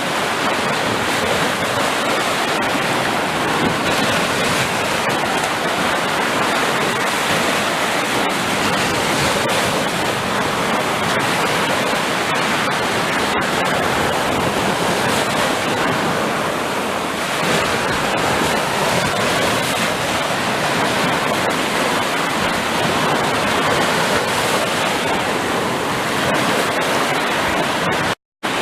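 Sea surf: a steady, continuous rush of breaking waves with no single wave standing out. The sound cuts out completely for a moment near the end, then resumes.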